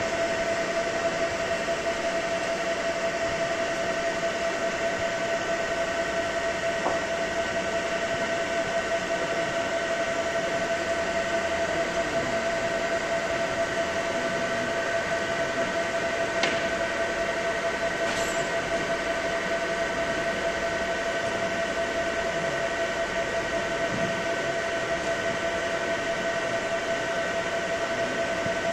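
CO2 laser marking machine running as it marks ceramic through ceramic marking paper: a steady whirring machine noise with a constant high whine.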